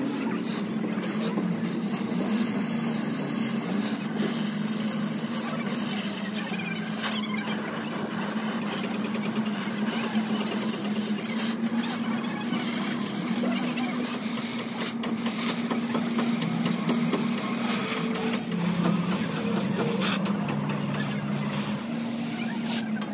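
Oxy-fuel cutting torch hissing steadily as its flame cuts through steel plate, over a steady low hum.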